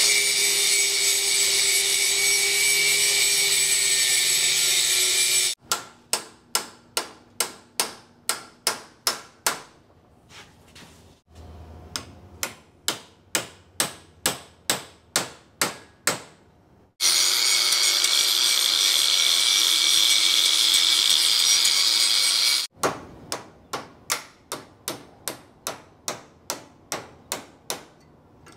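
A power tool cutting steel on a driveshaft in two long steady runs, alternating with three bouts of hammer blows on the shaft, about two a second.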